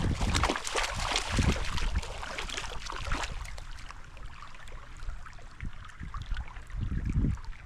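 Water splashing and sloshing in crackly bursts, with low gusts of wind buffeting the microphone.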